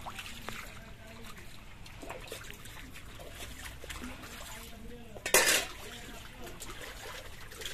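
Pond water trickling and sloshing as a person wades waist-deep and gropes underwater by hand, with one short, loud splash about five seconds in.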